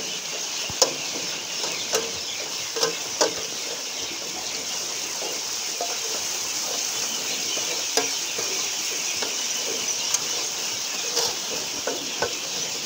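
Persian wheel at a well, its chain of metal buckets tipping water into a trough. The water splashes steadily, with irregular knocks and clanks from the turning buckets and wheel.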